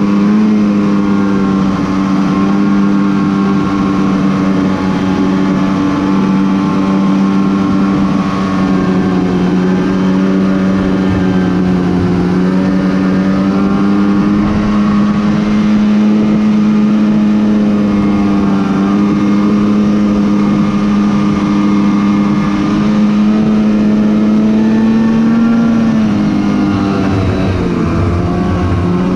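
Polaris Pro RMK 800 snowmobile's two-stroke twin engine running steadily under way, its pitch creeping up slightly through the middle. Near the end it dips briefly as the throttle eases, then picks back up.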